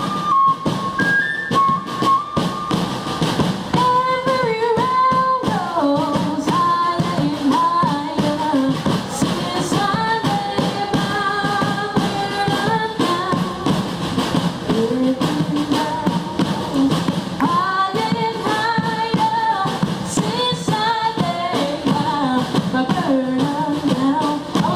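Live fife and drum band music: a fife plays a high melody for the first few seconds, then a woman sings over snare and bass drums beating steadily.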